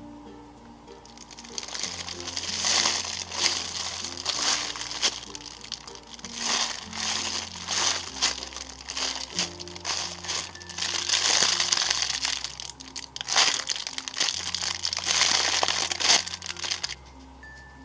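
Plastic packaging (bubble wrap and a clear plastic bag) crinkling loudly in irregular bursts as hands unwrap squishy toys. The crinkling starts about a second and a half in and stops just before the end.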